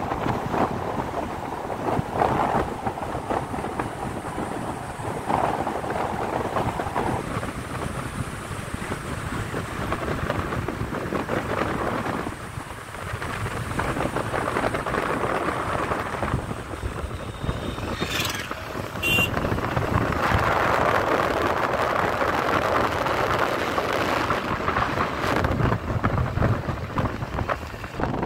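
Wind buffeting the microphone over the road noise of a moving vehicle, a steady rushing sound that grows louder about two-thirds of the way in. A brief high chirp sounds just before that.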